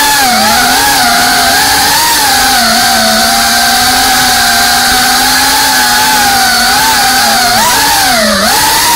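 FPV racing quadcopter's brushless motors and propellers whining, the pitch wavering up and down with the throttle as it flies; near the end the whine drops sharply and climbs straight back up.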